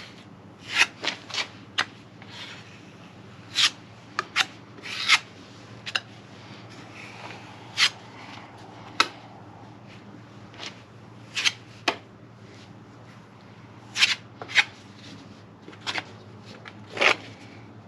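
Filler knife scraping as it spreads a thin final coat of two-part wood filler: short, sharp scrapes at irregular intervals, some in quick pairs.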